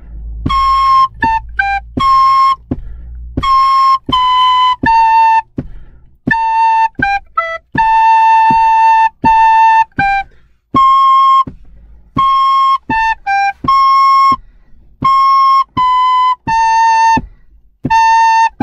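Soprano recorders playing a simple melody in call and response, a short phrase played and then repeated back. The notes are short and separated by brief rests, with one longer held note in the middle.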